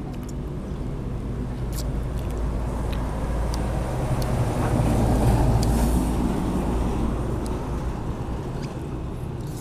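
A motor vehicle passing on the road: a low engine and tyre rumble that builds to its loudest about halfway through, then fades. A few light clicks of chopsticks and spoons on bowls sound over it.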